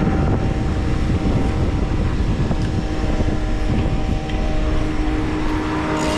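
Wind buffeting the microphone in a low rumble, over a steady droning hum like a running engine.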